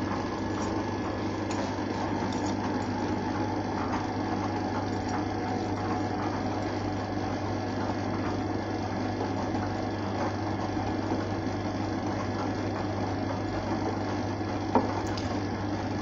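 Arçelik front-loading washing machine running a wash, its motor humming steadily as the drum turns the wet, soapy load of clothes.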